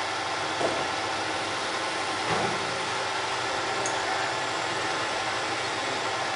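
Lathe running steadily with a constant machine hum, and a brief louder sound about two seconds in.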